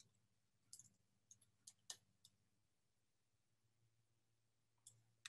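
Near silence, broken by a few faint, short computer clicks: a cluster about a second in and a couple more near the end.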